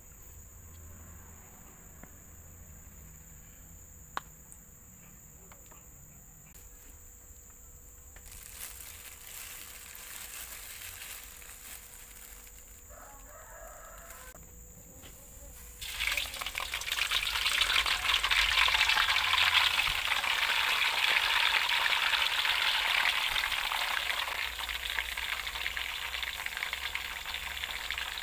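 Water-soaked instant noodle blocks dropped into hot cooking oil in a wok start sizzling loudly about halfway through, a dense steady frying hiss that carries on; before that only the faint sound of the oil heating.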